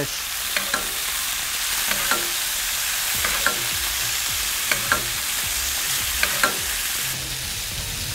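Snook fillets sizzling in hot avocado oil and melted butter in a large cast iron skillet while being basted. A utensil clicks against the pan a few times. The sizzle eases somewhat about seven seconds in.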